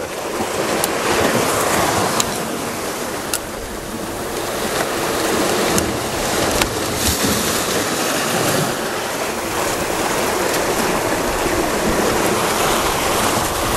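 Sea surf washing and breaking over rocks, a steady rush that swells and eases in slow surges, with a few faint clicks.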